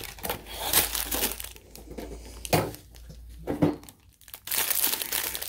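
Diamond-painting kit packaging crinkling and rustling in irregular bursts as it is handled and opened, with a short lull about four seconds in.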